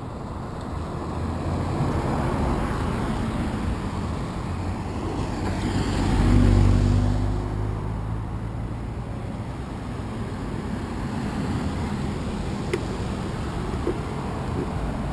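Road traffic going by at a wide intersection, with one vehicle passing close about six seconds in as the loudest moment.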